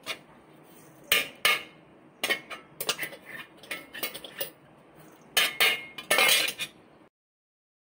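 Utensils clinking and knocking against a stainless steel mixing bowl while pitted dates go into the mix: a string of sharp, separate clinks, busiest shortly before the end, then the sound cuts off suddenly.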